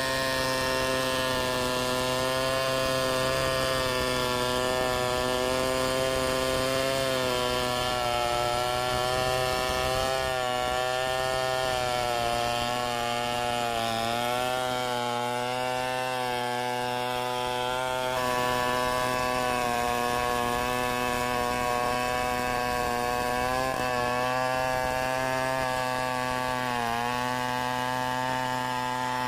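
Two-stroke chainsaw running at high revs while cutting wood. Its pitch dips briefly several times as the chain bites and the engine takes load.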